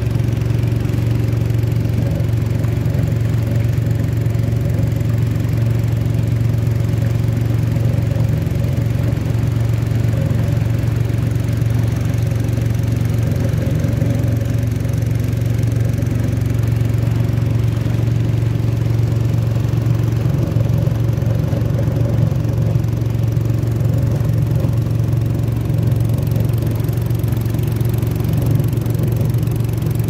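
A small boat's engine running steadily at an even speed: a constant low drone with a hum above it that does not change.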